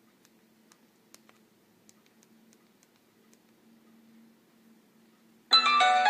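A few faint key clicks on a Nokia 5700 mobile phone, then about five and a half seconds in a ringtone starts loudly from the phone, a tune with several notes sounding at once.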